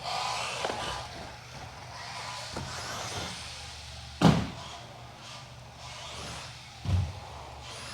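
Team Associated RC10B6.4 electric buggy running on the track, with two sharp thumps about four and seven seconds in.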